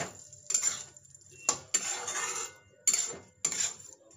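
Metal spatula scraping and knocking against a metal kadai while a dry drumstick-and-potato curry is stirred, in about six short scraping strokes.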